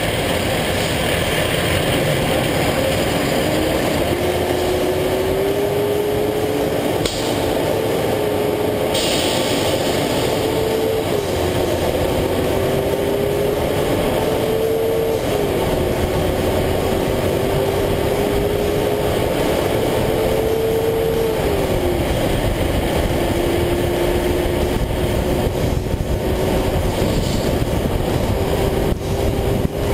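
Kenworth T300 dump truck's diesel engine accelerating up through the gears. Its note climbs steadily and drops back at each upshift, three times. Heavy tire and road noise from under the chassis runs throughout.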